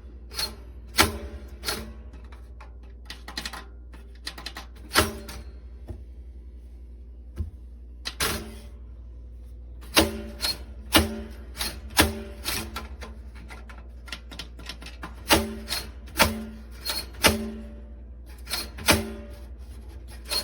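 A Cuisinart four-slice toaster's carriage lever is pushed down again and again and springs back up, giving about twenty sharp clacks at irregular spacing, some with a brief ring. The latch is broken and won't hold the lever down.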